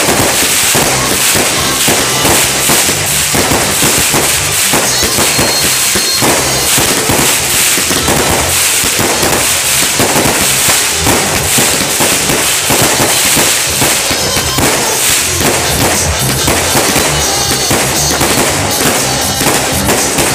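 Fireworks going off in a dense, unbroken run of bangs and crackles, many bursts overlapping.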